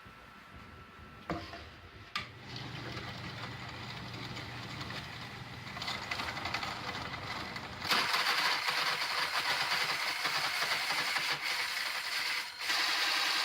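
A shop power tool clicks on and its motor starts and runs with a steady hum, then, about six seconds in, begins cutting plywood with a loud, even noise that breaks off briefly near the end and resumes.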